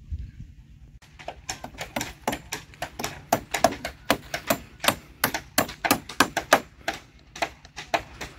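Hammers driving nails into a wooden house frame, a fast irregular run of sharp knocks, several a second, starting about a second in.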